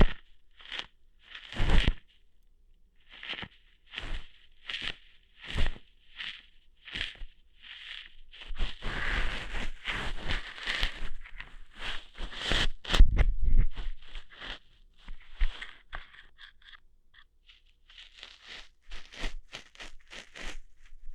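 Close-miked ASMR ear-hair plucking sounds: crunchy, scraping strokes, one at a time at first, then a dense stretch of scraping and rustling about halfway through, and quick crackles near the end.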